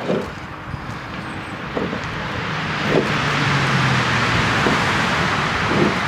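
A motor vehicle passing close by: a rushing noise that grows louder over the first few seconds, with a low engine hum in the middle.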